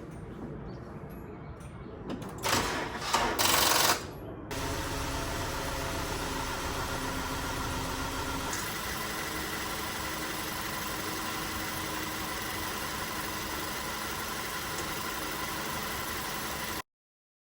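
A car engine being cranked by the starter in loud surges, catching about four and a half seconds in, then idling steadily. The sound cuts off suddenly near the end.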